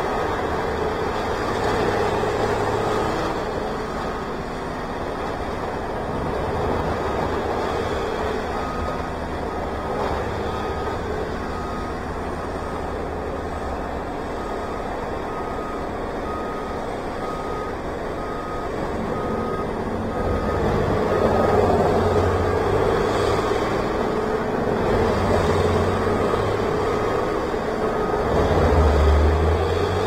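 Large tree shredder's engine running steadily, working through trees and stumps, louder in the last third. A reversing alarm beeps steadily for about ten seconds midway.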